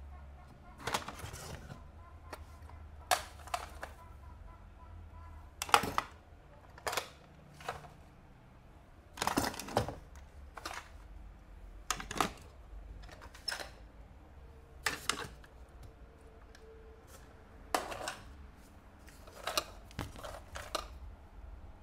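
Toy cars and their packaging being handled: scattered clicks, taps and short plastic rustles at irregular intervals.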